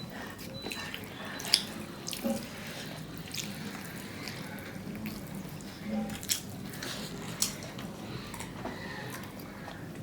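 Wet eating sounds from people eating fish curry with rice: scattered lip smacks and mouth clicks over quiet chewing.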